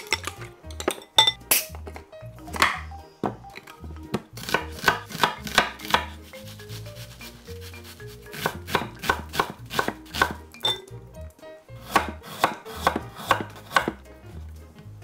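Chef's knife chopping vegetables on an end-grain wooden cutting board, an onion and then a carrot: quick runs of sharp knocks, about four or five a second, broken by short pauses.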